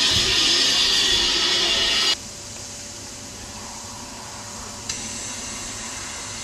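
Narrow-gauge steam locomotive hissing steam: a loud steady hiss that cuts off abruptly about two seconds in, then after a quieter stretch a new steady hiss starts suddenly about five seconds in.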